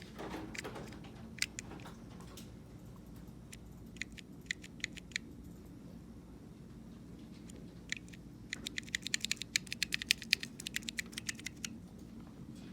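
Typing on a split mechanical keyboard with Kailh low-profile brown tactile switches: scattered keystrokes, a short run about four seconds in, then a fast steady run of clicks for the last few seconds.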